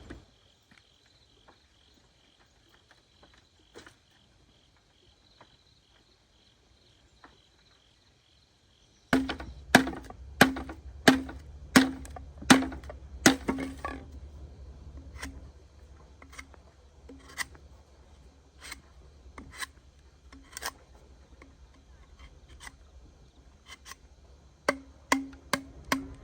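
Faint insects chirring. About nine seconds in, a knife starts chopping on a wooden cutting board in quick, sharp strokes, about two a second. The strokes then grow sparser and quieter, and pick up again in a short run near the end.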